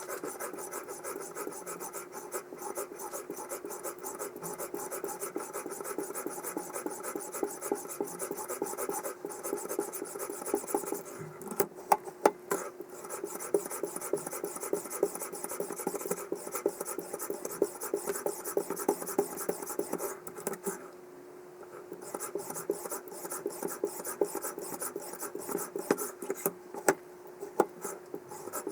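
Abrasive stone of a guided knife sharpener rasping along a steel blade edge in rapid back-and-forth strokes. A few louder clicks come about eleven to twelve seconds in, and there is a short pause about two-thirds of the way through.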